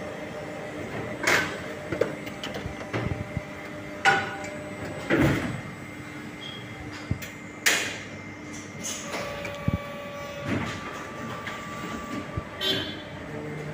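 Scissors snipping okra pods from their stems and the plants rustling as they are handled, with about half a dozen short, sharp snips and scrapes standing out over a steady background hum.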